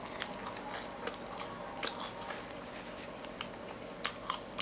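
Close-miked chewing of chewy fried dough (roti goreng and cakwe), with soft wet mouth clicks and a few sharper bites near the end.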